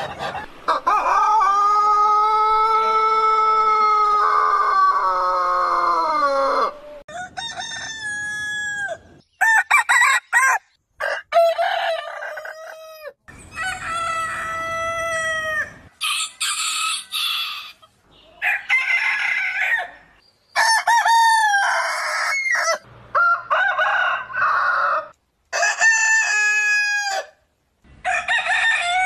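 Roosters crowing: one long drawn-out crow of about six seconds, then a run of shorter crows from different roosters, several of them cut off abruptly.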